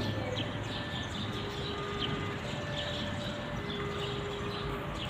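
Small birds chirping over and over above a steady low rumble, with a few thin whistled notes that come and go.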